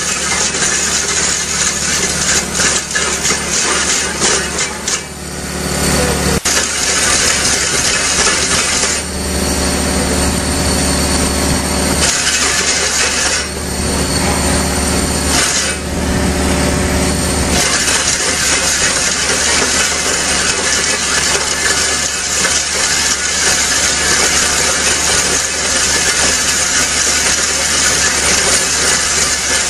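Excavator-mounted hydraulic drum cutter milling a concrete wall: a loud, dense grinding and rattling of the rotating pick drum against concrete. It runs over the steady hum of the Hyundai excavator's engine and hydraulics, which comes forward for a few seconds at a time in the middle.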